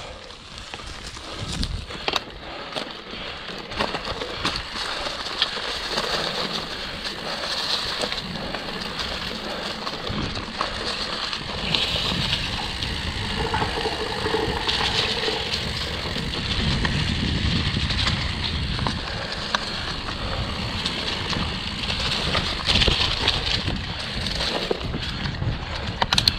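Mountain bike rolling along a dirt forest singletrack: tyres crunching over dry dirt and leaf litter, with constant clicks and rattles from the bike. A low rumble grows stronger in the second half.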